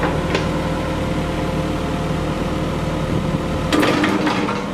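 Diesel engine of a Volvo BL70 backhoe loader idling steadily, with a few sharp metallic knocks near the end.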